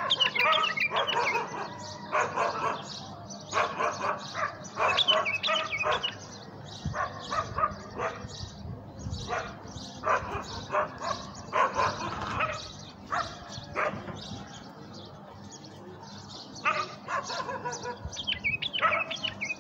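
Caged caller bulbuls calling in short, repeated pitched phrases with brief pauses between clusters. These are decoy birds kept to draw wild bulbuls in.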